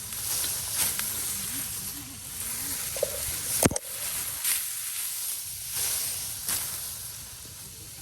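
Repeated swishing rustles, roughly one a second, with one sharp click about halfway through.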